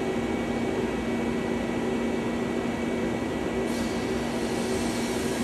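Steady hum of a powered-up 1995 Mazak SQT15MS CNC turning center while its axes are being referenced (homed). A higher hiss joins about three-quarters of the way through.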